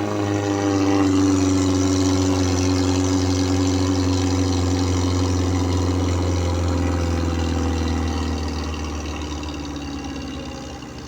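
Off-road jeep engine running steadily, its pitch easing slightly lower over the first few seconds, then growing gradually quieter near the end.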